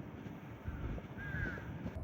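A bird calling: a short run of quick, curving notes about a second in, over a steady low rumble.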